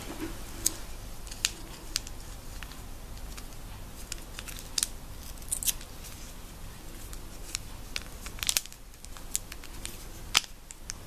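Hands handling a paper sugar sachet over a glass of coffee: small crinkles and sharp ticks at irregular intervals, with a few quicker clusters near the end.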